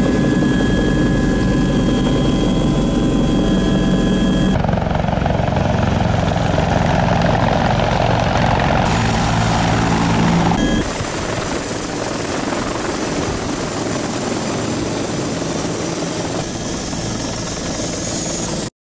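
Helicopter turbine and rotor running steadily with a high whine, heard in turn from inside the cabin and from the ground nearby. The sound changes abruptly three times.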